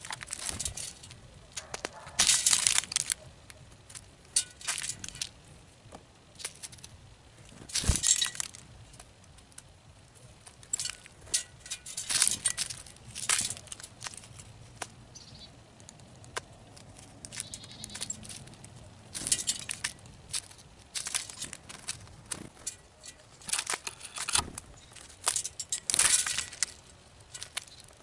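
Small birds pecking and rummaging through seed in feeder trays on a metal table. Irregular clicks, taps and seed rattles come with several louder scrabbling bursts, one about two seconds in, one near eight seconds and one near the end.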